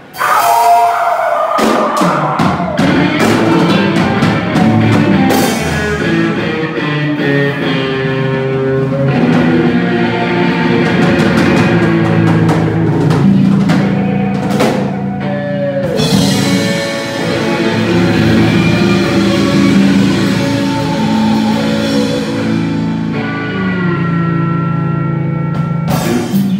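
Live rock band of electric guitars and a drum kit, kicking in all at once and playing a loud, driving song, with notes sliding in pitch here and there.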